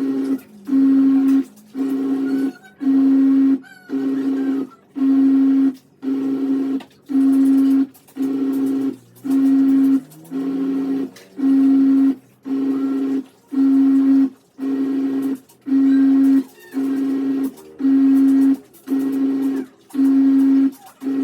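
Top-load automatic washing machine in its wash cycle. The motor hums in pulses about once a second, with short pauses between, as it turns the pulsator back and forth to agitate the clothes.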